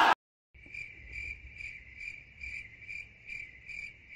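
Crickets sound effect: a steady high cricket trill pulsing evenly a little over twice a second, starting about half a second in after a brief dead silence. It is the stock 'crickets' gag for an awkward silence.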